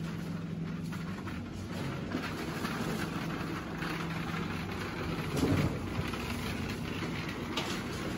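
Supermarket background noise: a low steady hum in the first few seconds over a general wash of store sound, with a couple of brief louder blips about five and a half and seven and a half seconds in.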